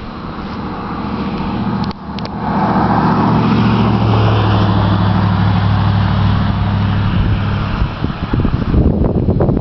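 Farmall M tractor's four-cylinder engine running, growing louder over the first couple of seconds and then loud and steady. Near the end the steady engine note gives way to a choppy, buffeting noise.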